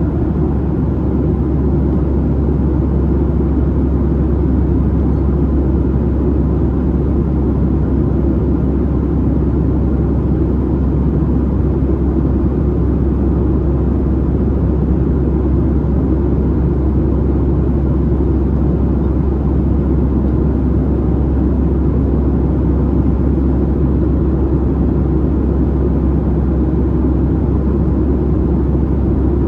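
Steady in-flight cabin noise of a Boeing 737-700: an even, low rumble of its CFM56-7B engines and the airflow past the fuselage, unchanging throughout.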